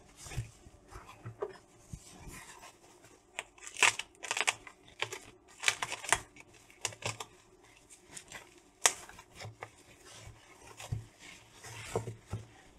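Plastic packing wrap being pulled open and crinkled by hand, with irregular sharp crackles and rustles, the loudest a few seconds in and again near the middle, and some tearing.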